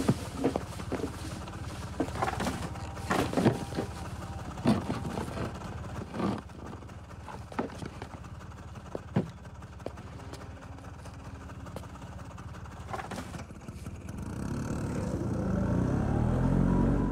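A motor scooter's small engine running steadily, with scattered clicks and knocks over it. In the last few seconds a low, rising drone swells louder and cuts off suddenly.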